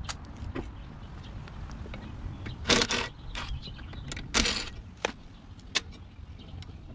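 A cordless power driver running in two short bursts of about half a second each, backing out the carburetor mounting bolts on a Briggs & Stratton Quantum lawn mower engine, with light clicks of metal tools and parts around them.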